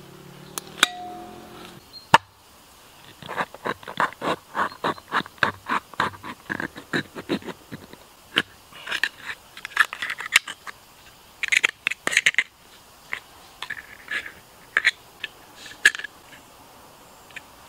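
A kitchen knife stabs and cuts through the thin metal lid of a tin can, a run of sharp metallic taps at about four a second. About halfway through come scraping, clinking strokes as the blade cuts on and pries the cut flaps of the lid back.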